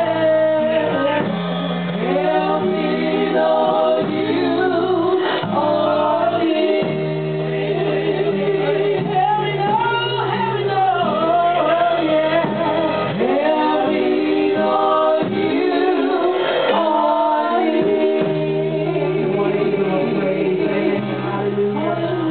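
Gospel praise-and-worship music: voices singing over held low chords that change every few seconds.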